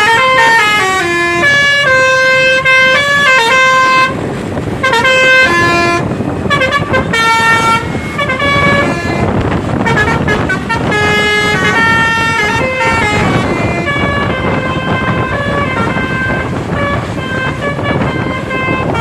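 Basuri telolet bus horn playing a long melody, its notes stepping up and down one after another. Steady noise rises beneath the horn about a third of the way in.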